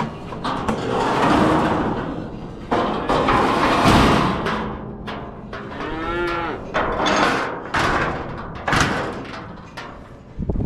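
Young bull bawling in several rough, noisy bellows, with one shorter pitched moo about six seconds in.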